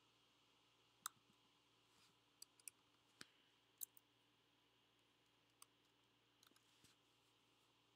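Faint, scattered clicks of a computer keyboard and mouse, about ten in all at an uneven pace, over a quiet background hiss.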